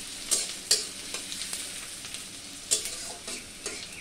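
Chopped onions frying in a metal karahi, a steady sizzle, while a long metal spatula stirs them, scraping and knocking against the pan about five times.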